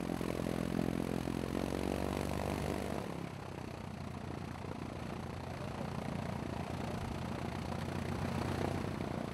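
An engine running steadily, with an even hum; about three seconds in its tone drops away into a rougher, noisier rumble.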